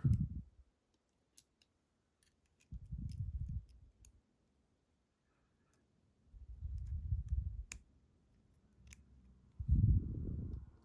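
Small scattered clicks of steel tweezers and tiny lock parts being handled while loading a lock chamber. Three dull low rushes of handling noise stand out, the loudest near the end.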